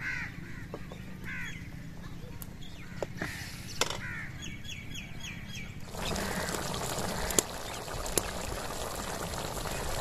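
Birds chirping and calling, with a quick run of repeated high notes in the middle. About six seconds in it changes to a steady hiss of a chicken and potato curry simmering and steaming in a large pot, with a couple of clicks.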